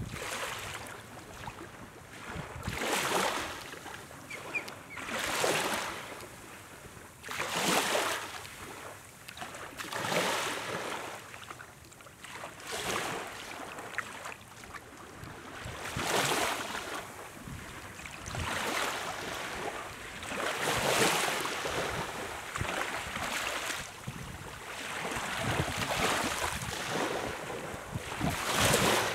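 Small waves lapping and washing up a sandy beach, one soft wash every two to three seconds.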